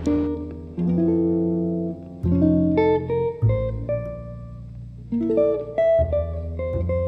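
Calm instrumental background music: a guitar plucking single notes over low bass notes.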